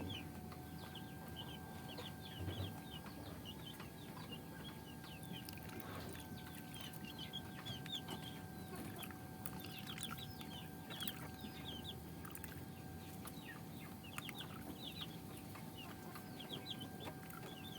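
Chickens clucking faintly, with many short high calls scattered throughout, over a steady faint hum.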